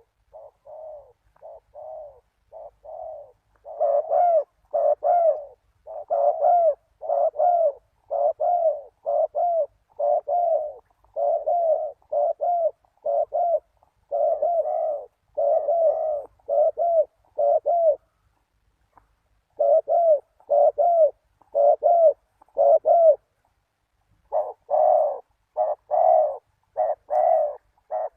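Spotted dove cooing: a long run of short repeated coos, about two a second, with two short breaks in the latter half.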